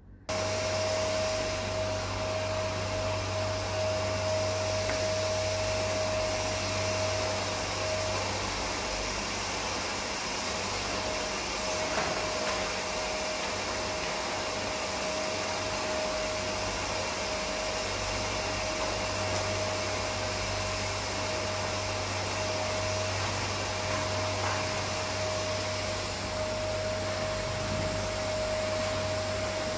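Canister vacuum cleaner running steadily on a rug, with an even motor whine. It starts suddenly at the very beginning.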